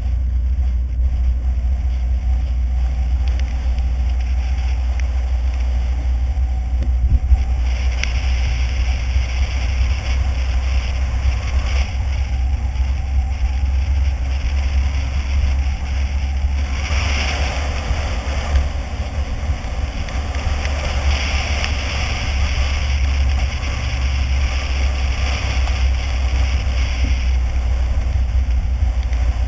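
A car driving on a rain-soaked road, heard from inside the cabin: a steady low rumble of engine and road noise under the hiss of tyres on wet tarmac and rain. The hiss grows louder about eight seconds in and swells again around seventeen seconds.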